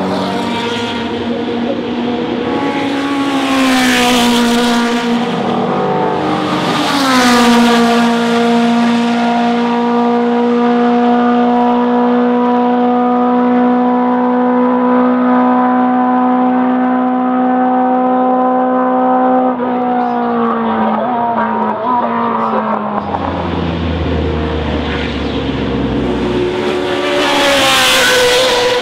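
Historic Can-Am sports-racing cars running flat out. Cars pass close about 4 and 7 seconds in, their engine notes dropping in pitch as they go by. A long, steady high-revving note follows and drops in pitch about 20 seconds in. An engine then builds again with a deep rumble, and another car passes close near the end.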